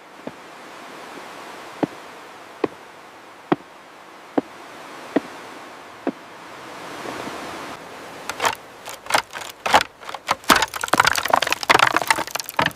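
Light, sharp knocks about once a second over a steady rushing noise, then a busy clatter of irregular knocks and rattles in the last few seconds, as parts are worked and fastened by hand.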